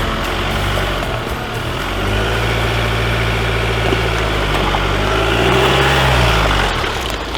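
A 4x4 truck's engine pulling under load: its pitch rises about two seconds in, holds, then drops back as it eases off near the end.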